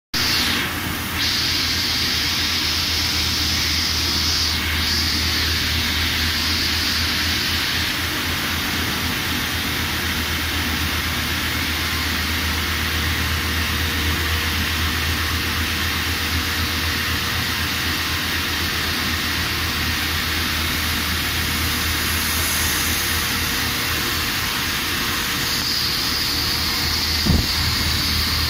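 CNC lathe turning a steel roll, its tool insert taking a finishing cut: steady machine running noise with a low hum and a hiss that is stronger at the start and again near the end. A short knock near the end.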